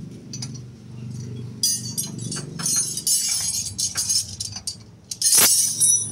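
Metal clinking and clattering, with ringing strikes, and one louder clank about five seconds in.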